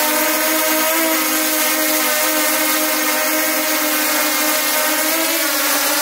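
DJI Mavic quadcopter's propellers and motors giving a steady, loud buzzing whine, heard close from a camera mounted on the drone, with small shifts in pitch as it flies.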